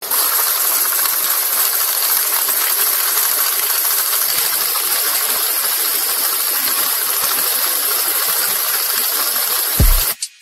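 A loud, steady hiss of noise. Near the end comes a short low thump, and then the hiss cuts off suddenly.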